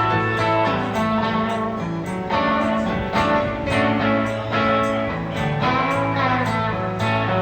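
Guitar music: an acoustic guitar strummed in a steady rhythm under held notes.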